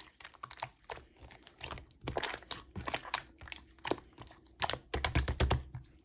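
Slime being squished and poked by hand, making a run of quick sticky crackles, pops and squelches, busiest about five seconds in.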